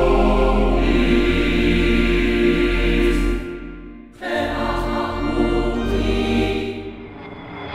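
Background choral music with sustained chords. It fades out a little after three seconds in and comes back about a second later.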